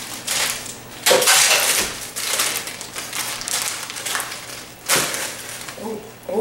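Plastic bag crinkling and rustling as it is handled and opened, with the loudest rustles about a second in and again near five seconds in.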